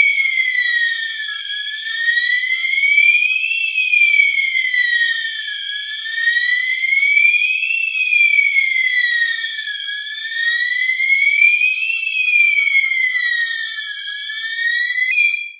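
Conventional fire alarm control panel's alarm sounding after a manual call point is activated: a loud siren tone sliding slowly up and down, about one rise and fall every four seconds, with steady shrill tones above it. It cuts off suddenly near the end as the panel is silenced.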